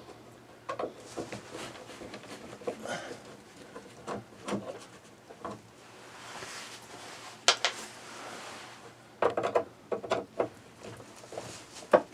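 Scattered light clicks, taps and rubbing from hand work on a roof vent fan's lift mechanism as its two screws are taken out. A few sharper clicks come near the end.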